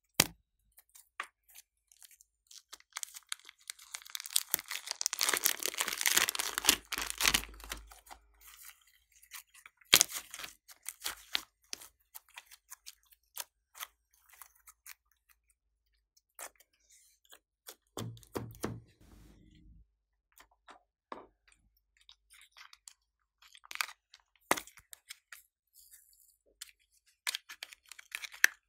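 Close-up handling noise of a plastic piping bag of clay being squeezed and crinkled, densest for a few seconds early on, followed by scattered clicks and taps as the clay and slime containers are handled.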